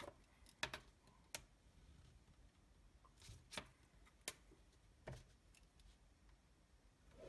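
Faint, scattered clicks and taps of a clear plastic ruler and a ballpoint pen being handled, lifted and set down on paper on a desk.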